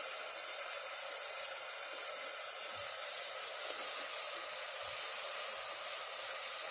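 Diced onion frying gently in vegetable oil in a stainless steel pot, a steady soft sizzle on low heat.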